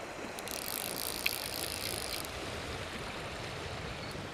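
A fly reel buzzes for about two seconds near the start, with a tick or two, while a hooked trout is being played. Underneath it runs the steady rush of stream water.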